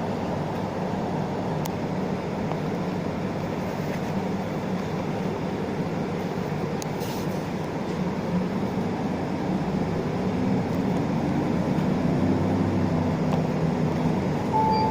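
Isuzu Erga city bus's diesel engine running, heard from inside the cabin, its pitch and loudness rising in the last few seconds as it speeds up. A short beep sounds near the end.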